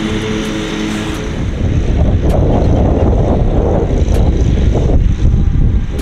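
A motor hums steadily for about the first second, then wind buffets the microphone with a loud, gusting rumble.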